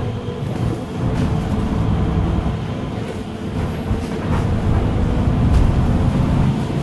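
Cabin noise of a gas-powered MAN EcoCity bus under way: a steady low engine and road rumble with a faint steady hum and a few light rattles.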